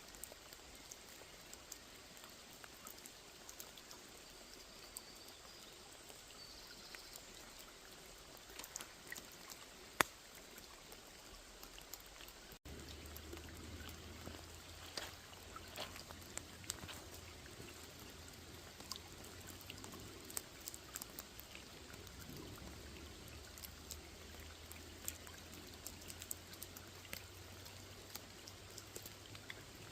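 Rain falling on a small lake: a steady, quiet hiss with many separate drops ticking through it. About twelve and a half seconds in, the sound cuts abruptly to a slightly fuller mix with a low steady rumble underneath.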